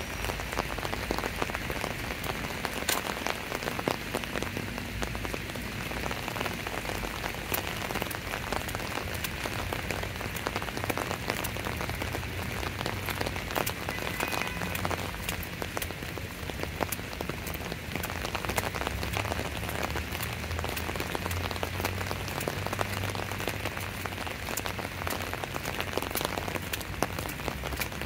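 Steady rain falling, with many sharp, close drop hits over an even hiss and a low rumble underneath.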